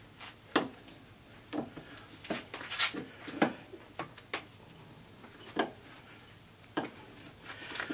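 Irregular metallic clinks and knocks, about a dozen, as an adjustable spanner and hand tools work brass plumbing fittings into a thick aluminium block.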